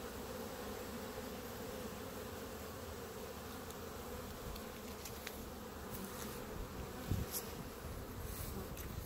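Honeybees buzzing in numbers at a hive entrance, a steady hum. A few faint clicks and one louder thump about seven seconds in.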